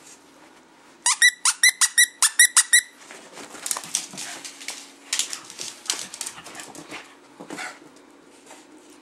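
A dog biting a squeaky plush toy, setting off about ten quick, loud squeaks in two seconds, then scattered scuffling and clicking as the dog moves about with the toy on the floor.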